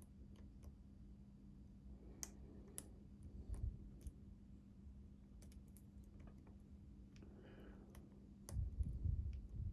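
Small, irregular metallic clicks of a half-diamond lock pick and tension wrench working the pins of a Master Lock 6835 padlock, with a couple of duller low bumps around three and a half seconds and about nine seconds in.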